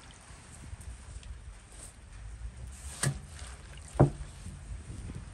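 Fresh herbs and greens being swished and pressed by hand in water in an enamel basin, with two sharp thumps about three and four seconds in, the second the loudest.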